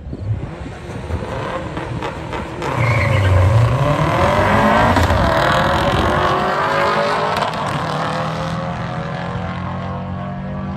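Two cars accelerating flat out down a drag strip, their engine notes climbing in pitch again and again through the gears. It grows loud a few seconds in and fades as they pull away down the track.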